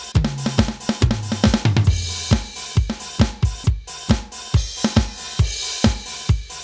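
Aroma TDX-25 electronic drum kit played with sticks on its "Swing Jazz" kit voice. A fill runs down the toms in the first two seconds, falling in pitch step by step, then the kit keeps a steady beat of kick, snare and cymbals.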